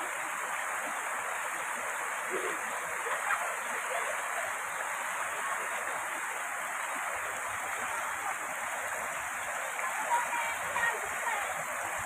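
Rocky mountain stream rushing steadily over boulders and small cascades.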